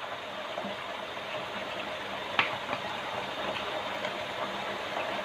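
Macaroni with sauces sizzling steadily in a pot on the stove, an even hiss, with one light click about two and a half seconds in.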